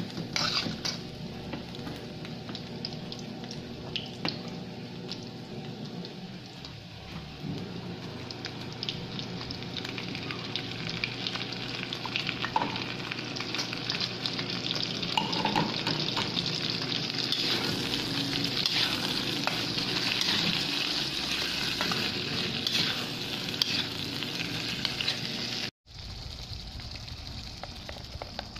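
Sliced hotdogs and corned beef sizzling in a hot frying pan, with the spatula scraping and tapping against the pan as it stirs. The sound cuts out briefly near the end.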